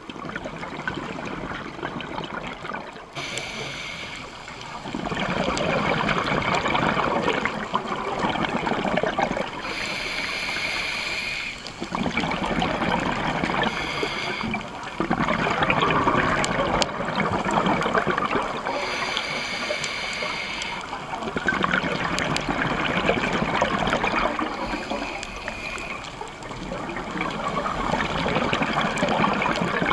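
Scuba regulator breathing heard underwater: a gurgling rush of exhaled bubbles lasting a few seconds, alternating with quieter inhalation hiss, about every five seconds.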